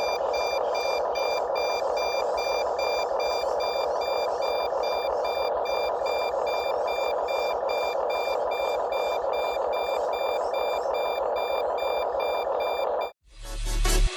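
Rapid electronic beeping, about two to three short high beeps a second, over a steady hiss; it cuts off near the end and music starts.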